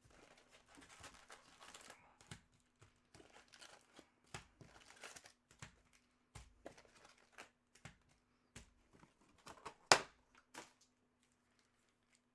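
Plastic wrapping on trading-card boxes and packs being crinkled and torn open: a run of short crackles and rustles with one sharp loud snap about ten seconds in, stopping near the end.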